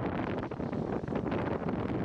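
Wind blowing across the microphone over a steady low rumble of noise, with no distinct events.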